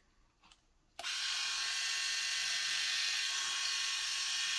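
Sejoy cordless three-head rotary electric shaver switched on about a second in, its motor and rotary blades then running with a steady high whir.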